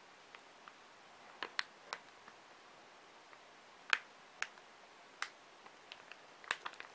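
Scattered small clicks and wet ticks, about eight of them, as chunky onion ponzu sauce is spooned over sliced roast beef on a plate.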